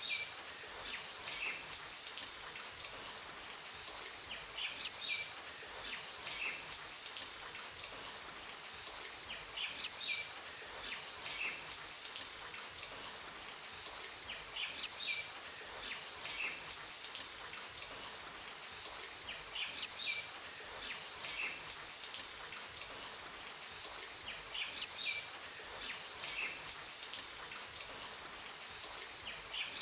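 Steady rain hiss with short high bird chirps, the chirp pattern repeating about every five seconds.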